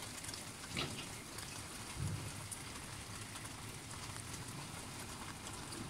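Steady rain falling, an even hiss with a patter of drops on nearby surfaces. Two brief soft knocks stand out, about one and two seconds in.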